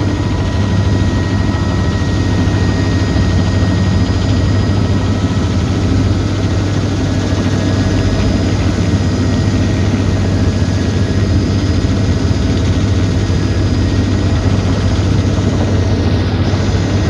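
Helicopter engine and rotor heard from inside the cabin: a loud, steady, deep drone.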